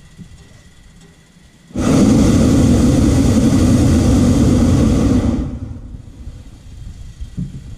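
Hot air balloon's propane burner firing: one loud rushing blast that starts abruptly about two seconds in, holds steady for nearly four seconds, then dies away.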